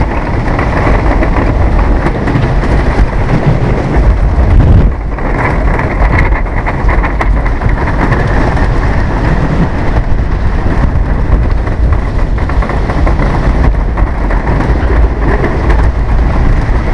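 Wooden roller coaster train running at speed through its structure: a loud, continuous rumble and clatter of the train on the wooden track, easing briefly about five seconds in.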